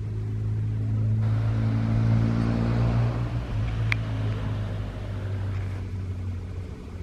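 An engine running close by: a steady low hum that swells for a few seconds and then eases off. A single short click about four seconds in.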